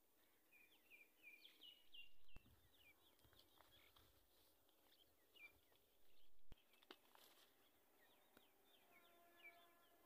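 Faint chorus of small birds chirping in quick short calls. Twice, a brief swell of low rushing noise rises and then cuts off sharply.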